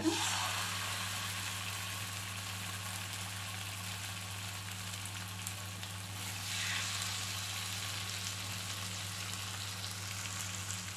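Marinated seer fish (anjal) steaks sizzling as they fry in a shallow layer of hot oil. The sizzle starts as the first piece goes in and swells about six and a half seconds in as a second piece is laid in, over a steady low hum.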